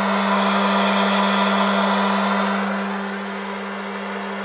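Hot air popcorn popper running as a coffee roaster: a steady motor hum under the rushing hiss of its fan blowing hot air through tumbling coffee beans, louder for the first few seconds while a wooden spoon stirs the beans. The beans are near, but not yet at, first crack.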